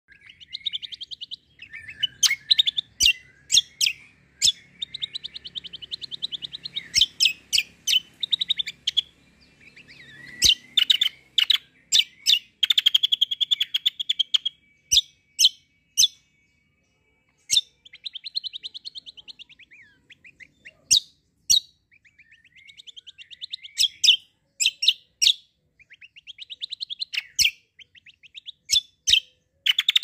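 Caged kecial kombo (cucak kombo) songbird singing in quick rolling trills broken up by loud, sharp single notes, phrase after phrase with short pauses between.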